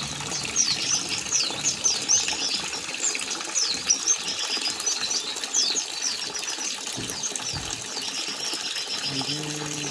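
Long-tailed shrike (cendet) giving rapid, short, high chirps and twitters over a steady splashing of water as it is bathed.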